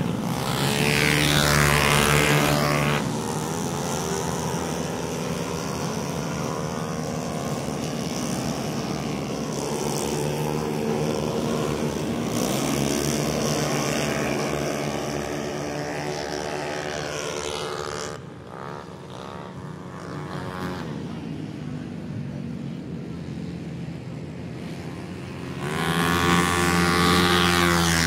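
Racing 160cc automatic scooters pass at high revs one after another, each engine's pitch falling as it goes by. The loudest passes come at the start and again near the end, with engines droning from further off in between.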